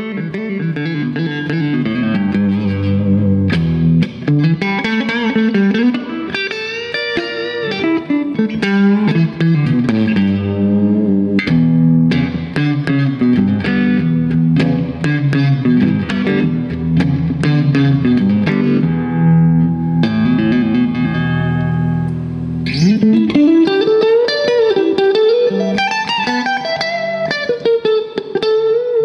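Electric guitar being played for a sound check: picked notes and held chords, with many notes gliding up and down in pitch over sustained low notes, and a louder new phrase about three quarters of the way through.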